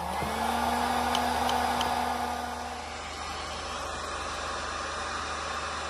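Cordless heat gun running, its fan blowing hot air onto a solder-seal heat-shrink wire connector. There is a steady motor hum under the rush of air; the hum fades about three seconds in and the airflow goes on a little quieter.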